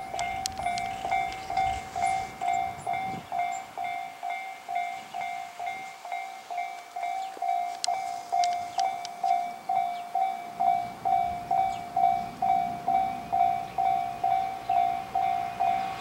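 Japanese railway level-crossing warning bell ringing steadily at about two dings a second, the signal that a train is approaching and the crossing is closed.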